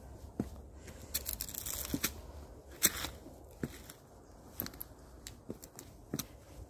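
Footsteps of a person walking, a soft thud a little more often than once a second, with crinkling, crunching rustles close to the microphone, loudest in two bursts during the first three seconds.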